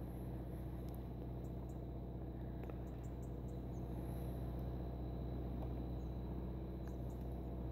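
Faint outdoor ambience: a steady low hum under an even background hiss, with a few faint, short high chirps from small birds in little clusters about one and a half, three and seven seconds in.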